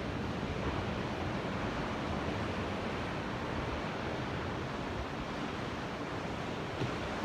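Ocean surf: a steady, even wash of waves with no single break standing out.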